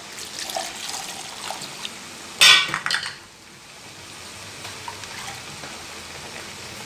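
Water being poured into a metal pot of chicken in soya masala, with a loud short splash about two and a half seconds in, then a faint steady hiss from the pot.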